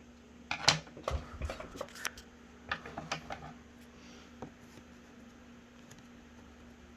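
Hands working at a small cardboard box that is hard to open: a run of short scrapes, taps and rustles over the first three and a half seconds, then only a faint steady hum.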